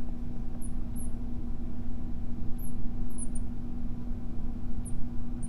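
Steady low rumble of room noise with a constant hum, and a few faint, brief high squeaks from a marker writing on a glass lightboard.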